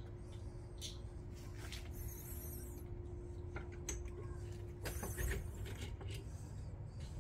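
Quiet outdoor background: a low rumble and a faint steady hum, with a few light clicks and knocks about midway.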